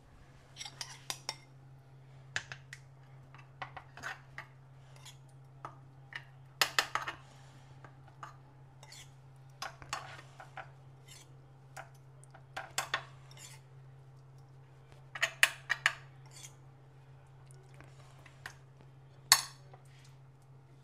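Kitchen utensils clinking and clattering against dishes in irregular taps and scrapes while a marinade is mixed for lamb chops, the loudest clink near the end. A faint steady low hum runs underneath.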